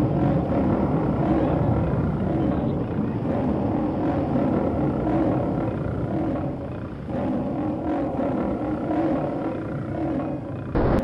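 Monster sound effect: a continuous, layered growling roar that dips briefly just before the end and then comes straight back.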